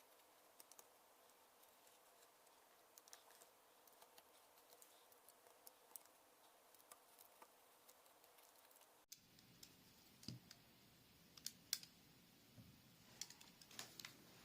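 Faint scratching and small clicks of a precision utility knife blade scraping sticky tape glue off a headphone headband strap.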